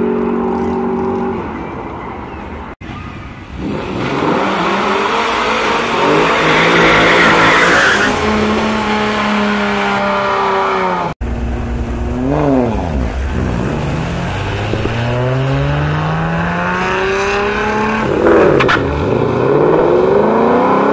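Drag-racing cars at the start line: an engine idling steadily, then a burnout with tyre squeal over the engine, then engines revving up and down while staging, with a sharp rev near the end.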